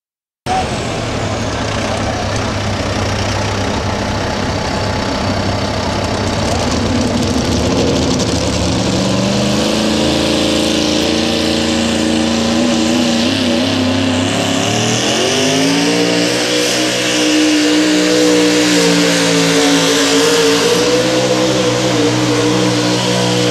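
Modified 4x4 pulling truck's engine running hard under load as it pulls the sled down the track, cutting in abruptly about half a second in. The engine pitch climbs gradually, then rises sharply about fifteen seconds in and holds high.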